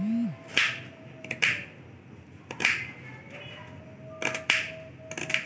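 Kitchen knife slicing through a red onion against a cutting board: about half a dozen separate cuts, each a short crisp crunch ending in a tap on the board, spaced unevenly about a second apart, with two quick cuts close together about four seconds in.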